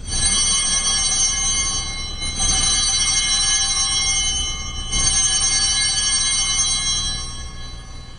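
Altar bells rung three times at the elevation of the host, each ring a shimmer of many high tones that dies away slowly. The rings mark the raising of the consecrated host.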